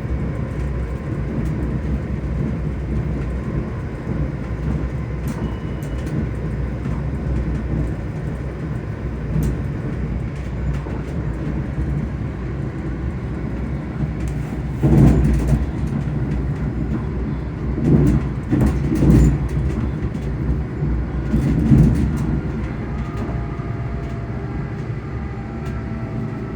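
Onboard running sound of a ScotRail electric train: a steady low rumble from the wheels on the track, with the traction motors humming. Several louder bumps come about halfway through and again a little later, and faint steady motor tones come through near the end.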